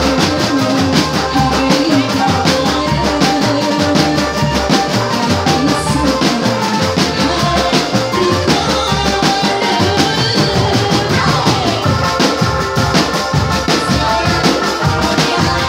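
Marching drum band playing live: massed tenor and bass drums beat a steady rhythm under a trumpet melody.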